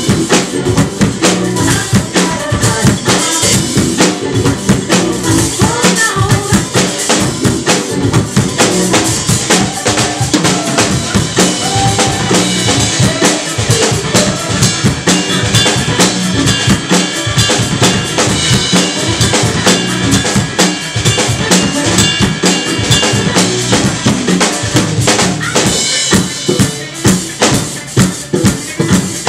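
Drum kit played in a funk solo: bass drum, snare with rimshots, toms and cymbals in dense fills. Near the end the strokes settle into a sharper, steadier beat.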